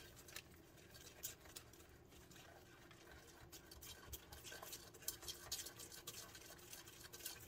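Faint, irregular clicks and scrapes of a wire whisk stirring a runny gelatin mixture in a small saucepan.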